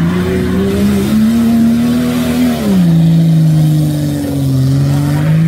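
A car engine revving, its pitch stepping up and down: it climbs early, holds high for a couple of seconds, drops about two and a half seconds in, dips again and rises once more near the end.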